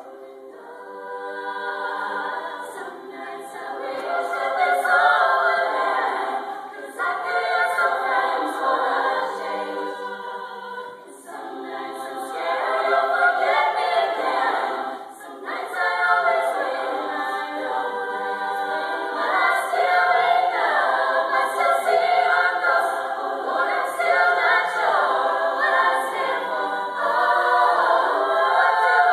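Female a cappella vocal group singing in harmony, several voices sustaining and moving chords together, growing louder over the first few seconds.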